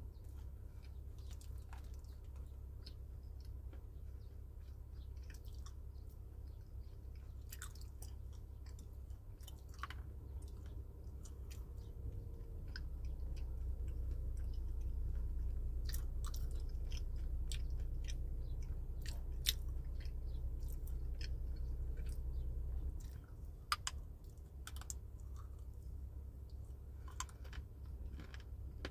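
Close-up chewing and crunching of dried fruit, with many scattered crisp crackles. A low rumble underneath swells in the middle and cuts off sharply about three-quarters of the way through.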